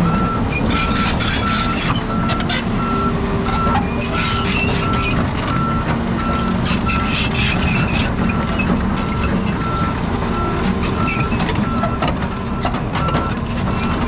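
Large tracked excavator on the move: its travel alarm beeps steadily about twice a second over the running diesel engine, with rattles and knocks from the machine.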